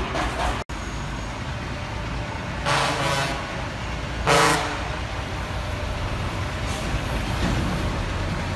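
Heavy vehicle engine running steadily, with two short horn toots, about three seconds in and again about a second and a half later, the second louder.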